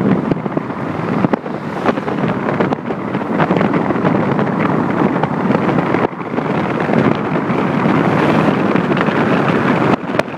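Wind rushing over the microphone of a phone filming from a moving vehicle, mixed with road noise: a steady loud rush that dips briefly about six seconds in.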